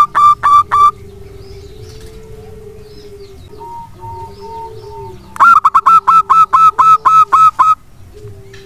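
Zebra dove (perkutut) calling. A fast run of loud, clipped staccato notes, about six a second, ends about a second in. A second run of about a dozen notes comes just past halfway and lasts about two seconds. Faint drawn-out lower tones continue between the runs.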